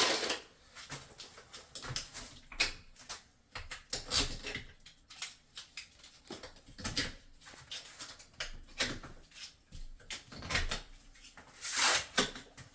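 Irregular light clicks and knocks of ceramic wall tiles being handled and set, with a brief louder rush of scraping noise near the end.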